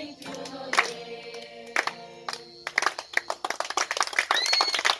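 A group of people singing together, with a sharp hand clap about once a second; a little over halfway through the singing stops and turns into fast, dense clapping, applause from the group.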